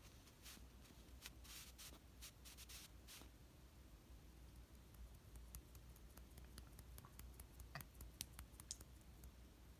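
Near silence: room tone with faint scattered clicks and light rustles, a group of them in the first three seconds and another near the end.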